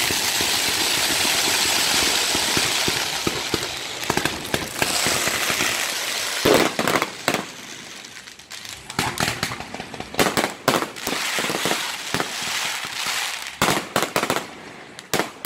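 Fireworks display: a dense hiss for the first few seconds, then many sharp bangs of bursting shells, single and in quick clusters.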